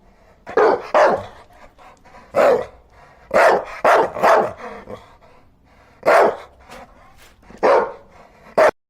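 A dog barking, about nine short barks in irregular bunches with pauses between them. The recording cuts off abruptly right after the last bark.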